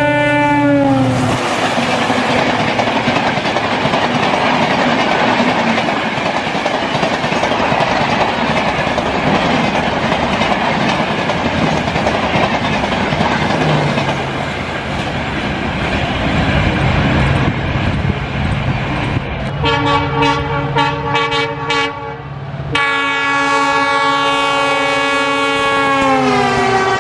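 Indian Railways diesel locomotive horn sliding down in pitch as the locomotive passes, then the express coaches running past over the rails as a steady noise. About two-thirds of the way through, another train's locomotive sounds a long horn, broken once briefly, that falls in pitch near the end as it passes.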